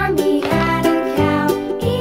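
Upbeat children's music with singing and a steady beat.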